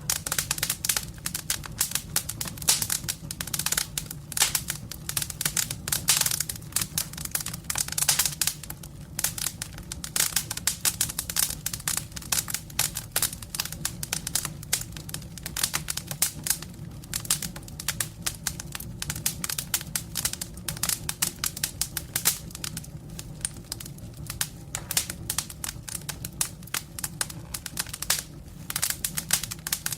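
Campfire burning, its wood crackling with dense, irregular snaps and pops over a steady low hum.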